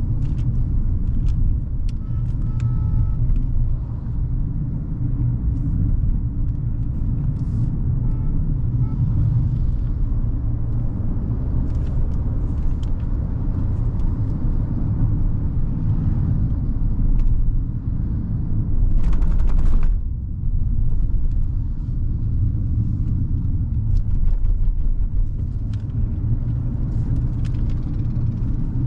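Hyundai Creta's 1.5-litre four-cylinder petrol engine and tyres under way on the road, a steady low rumble with scattered light clicks and knocks. A short burst of hiss comes about two-thirds of the way through.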